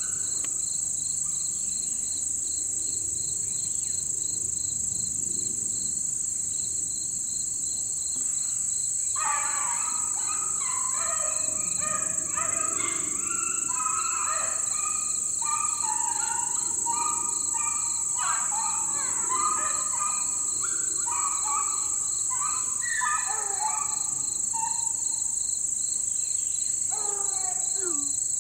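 A pack of beagles baying on a rabbit's trail: overlapping bays and bawls start about nine seconds in and carry on for some fifteen seconds, with one falling howl near the end. Under it, a steady chorus of insects with an evenly pulsing cricket chirp.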